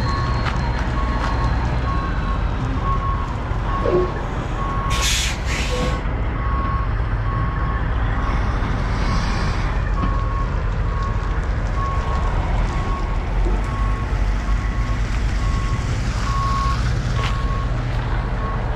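Truck's backup alarm beeping steadily, a little faster than once a second, over the low rumble of idling diesel truck engines. About five seconds in there are two short, sharp hisses.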